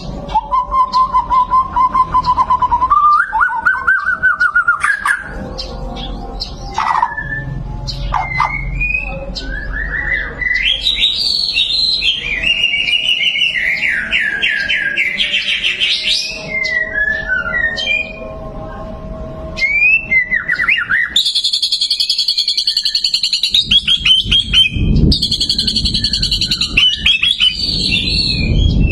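White-rumped shama (murai batu) singing a long, varied song: loud whistled phrases with held notes, rapid trills and rising and falling slurs, with hardly a pause.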